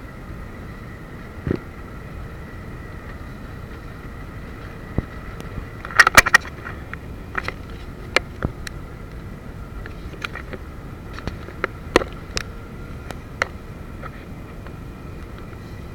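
Motorboat under way, its engine running steadily with a faint steady whine over the rush of water and wind. Sharp knocks and clatters break in: a loud cluster about six seconds in, more around twelve seconds, and a few single ones between.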